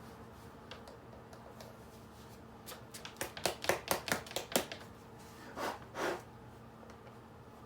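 Handling noise: a quick run of about eight clicks and taps over a couple of seconds, then two short rustling swishes, over a faint steady hum.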